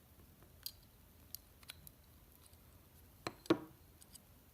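Small metal parts of a folding knife clicking and tapping as it is handled during reassembly: a few light ticks, then two sharper clinks a little past three seconds in, the second ringing briefly.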